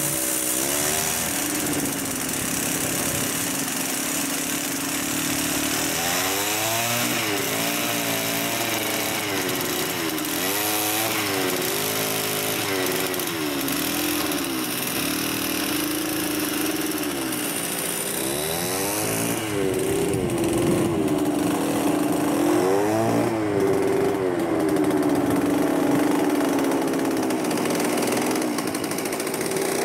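Small petrol engine of a lure-coursing lure machine running and revving up and down over and over, its pitch rising and falling as the lure's speed is varied ahead of the chasing dogs.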